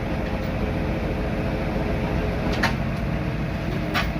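18-inch two-roll rubber mill (hot mill) running with a steady low hum and rumble, with two sharp clicks about two and a half and four seconds in.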